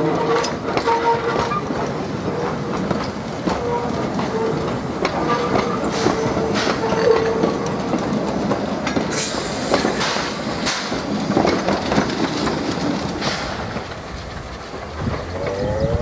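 Small heritage steam train of wooden carriages hauled by Kerr Stuart steam locomotive 4185 rolling past, its wheels rumbling and clicking over the rail joints, with a thin on-and-off tone during the first half.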